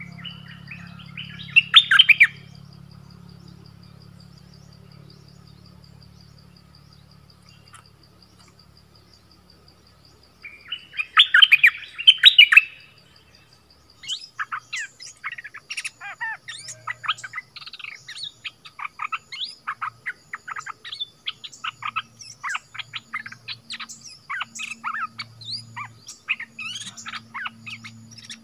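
Bulbuls (นกดอกแตง, 'merbah') in a trap cage calling: two short, loud bursts of harsh calls, about two seconds in and again around eleven to thirteen seconds, then rapid, unbroken chattering from about fourteen seconds on. A faint steady high insect drone runs underneath.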